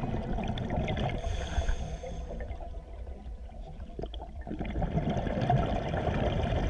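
Underwater bubbling and gurgling over a low rumble: a scuba diver's exhaled air bubbles rising past the camera.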